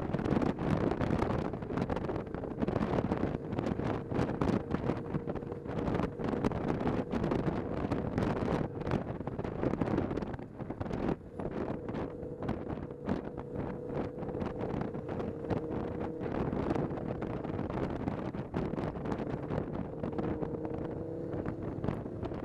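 Wind buffeting the microphone of a camera on a moving cruiser-style motorcycle, over the steady running of its engine at a constant cruising speed.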